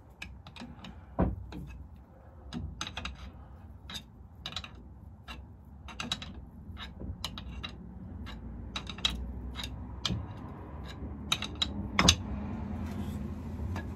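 Irregular metallic clicks and clinks from the Daimler Ferret's epicyclic wheel hub as its star bearing is worked loose by hand, with sharper knocks about a second in and near the end, over a low steady hum.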